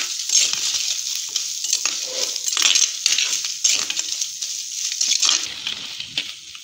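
Chopped onions, dried red chillies and spices frying in hot oil in a clay pot, sizzling while a perforated metal spatula stirs and scrapes them around the pot in repeated strokes. The sizzle drops back about five and a half seconds in.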